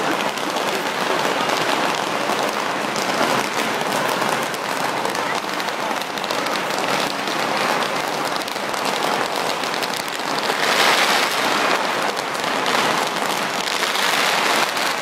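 A long string of firecrackers going off in a dense, continuous crackle of rapid pops, growing louder about ten to eleven seconds in.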